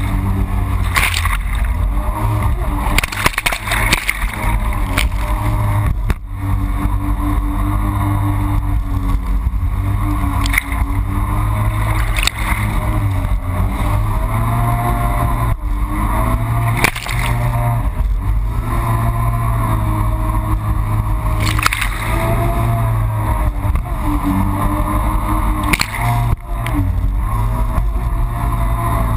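Yamaha FX HO Cruiser jet ski engine running at speed, its pitch rising and falling with the throttle, with occasional sharp slaps of the hull on the water.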